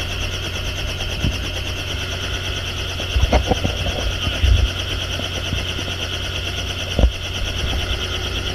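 Helicopter running on the ground: a steady turbine whine over the low, pulsing beat of the turning rotor. A few dull thumps come around three to four and a half seconds in and again about seven seconds in.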